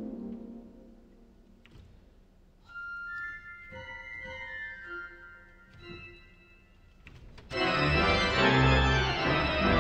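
Pipe organ playing in a reverberant cathedral: a falling run dies away in the echo, a few soft high notes follow, then about two seconds before the end a loud full-organ chord with deep pedal bass comes in.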